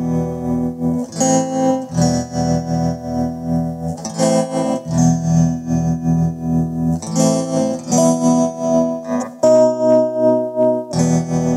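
Instrumental background music, its chords changing every second or two.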